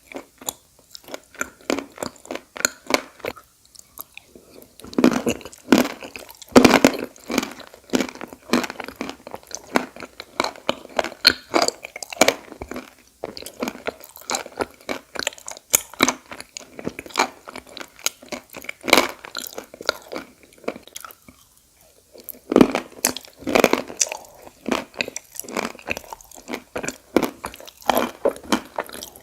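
Close-up crunching and chewing of pieces of edible clay (khawa), with bites that come in quick clusters and two short pauses, one a few seconds in and one about two thirds of the way through.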